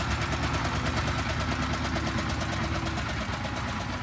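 A work vehicle's engine running steadily with a fast, even beat.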